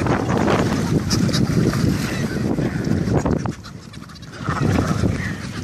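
Wind rumbling on the microphone beside a feeding flock of seabirds (giant petrels, cape petrels and albatross) on the water, with short scattered calls from the birds. The wind drops briefly a little past halfway.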